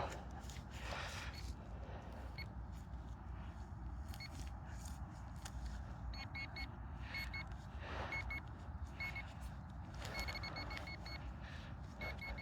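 Metal detector giving runs of short, faint, high beeps from about six seconds in as it sounds over a target, over a low steady rumble of wind or handling.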